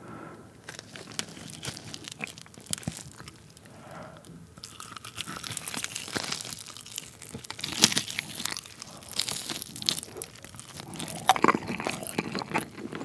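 Close-miked biting and chewing of a sauce-coated Goobne Volcano roast chicken drumstick: many small crunchy clicks and wet smacks, sparse at first and growing denser and louder after about five seconds.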